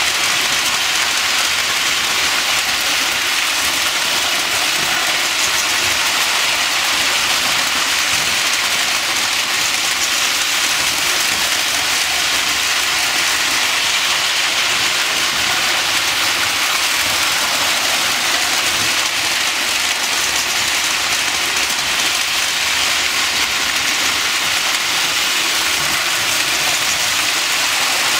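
Lionel toy electric trains running on three-rail track, a steady, even whirring rush of wheels and motors with no break.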